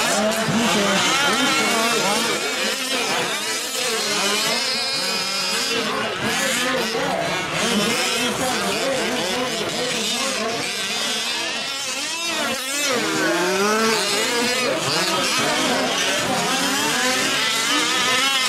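Several 1/5-scale RC off-road trucks' small two-stroke gasoline engines racing together, their overlapping revs rising and falling in pitch as they accelerate and brake around the track.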